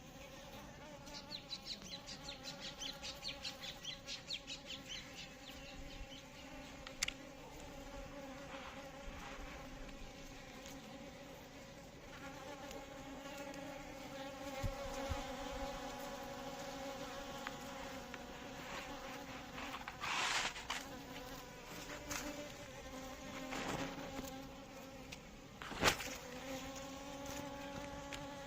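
Asian honey bees (Apis cerana indica) buzzing in a steady hum, with a fast fluttering pulse in the first few seconds. A few brief knocks sound in the second half.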